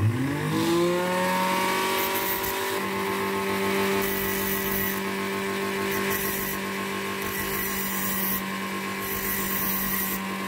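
Brushed motor of a Brawn blender base turned into a knife grinder: it spins up quickly to a steady high whine. From about two seconds in, a steel rod is pressed against the spinning grinding disc about five times, and each touch gives a harsh grinding hiss as sparks fly.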